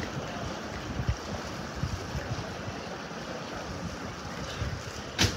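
Wind buffeting the microphone: an even rushing noise with irregular low thumps. One sharp click comes near the end.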